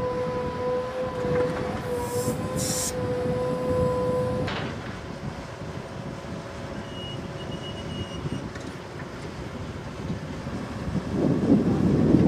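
Diesel earthmoving machinery at work: a Kobelco hydraulic excavator digging, with a steady high whine over the engine, then, after an abrupt change, a small crawler bulldozer pushing dirt, its engine growing louder near the end.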